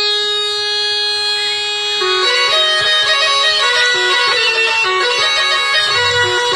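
Bagpipe music: one long held note for about two seconds, then a fast, ornamented melody of quickly changing notes.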